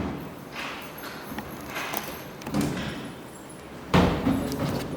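Handling knocks, with a loud thud about four seconds in, as a top-load washing machine and its packaging are worked on.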